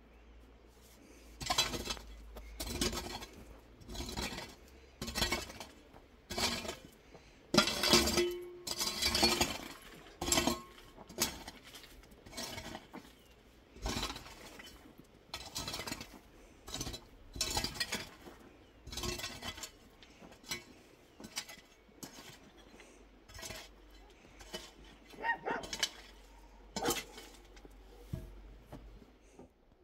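Dishes and utensils being handled, with irregular clinks and clatters spread throughout, a few of them ringing briefly and the loudest about eight to ten seconds in.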